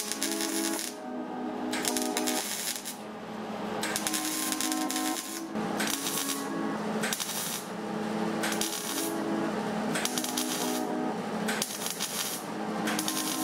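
MIG welder crackling in repeated bursts of about a second each, with short breaks between: stitch-welding sheet-steel body panel along a car's rear wheel arch.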